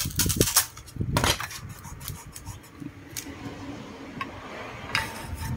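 Hands handling a small aluminium amplifier case and smoothing tape onto it. A few clicks and knocks come in the first second or so and one more near the end, with soft rubbing between them.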